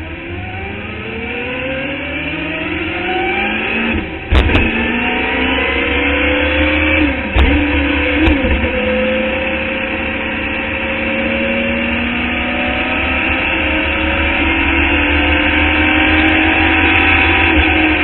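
Open-wheel Club Formula Indy race car's engine heard from the cockpit, accelerating hard up through the gears. The pitch climbs, drops sharply with a short crack at an upshift about four seconds in and again about seven seconds in, then pulls steadily higher.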